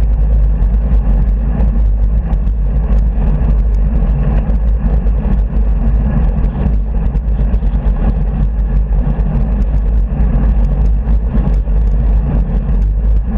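Steady low rumble of road and traffic noise from a bicycle riding along a busy dual carriageway, with car traffic going past and frequent small rattles throughout.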